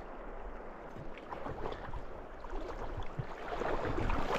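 Splashing and lapping of river water around a hooked rainbow trout being brought in to the net, with small sharp splashes over a steady rushing and getting louder near the end.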